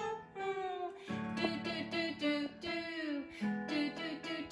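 Music: strummed acoustic guitar chords, struck about every two seconds, with a gliding melody line above them.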